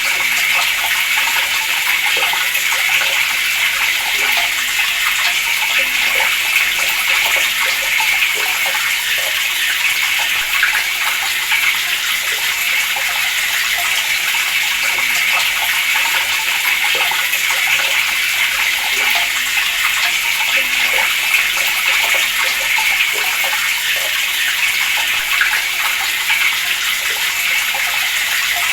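Water running steadily from a tap, an even splashing stream with no break.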